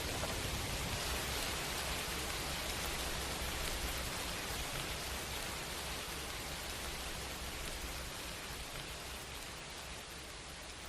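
Heavy rain falling steadily as a dense, even hiss, slowly fading in level through the second half.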